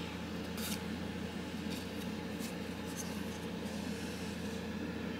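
Faint ticks and rubbing from a Spyderco Paramilitary 2 folding knife being handled, over a steady low room hum.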